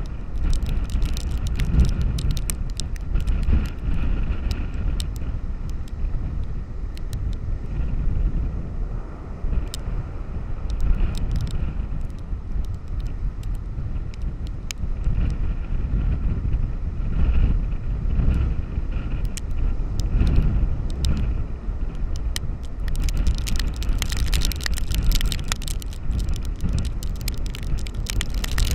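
Storm wind buffeting the microphone with a steady low rumble over breaking surf. Scattered sharp ticks hit the camera throughout and come thick and fast near the end.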